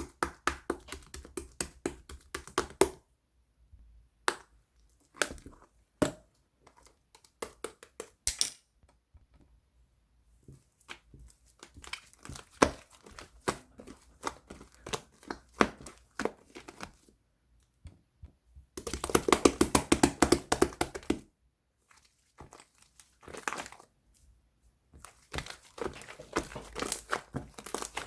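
Slime being squished, poked and stretched by hand, giving off crackly clicks and pops in uneven clusters with short pauses. A dense run of rapid squishing comes about two-thirds of the way through.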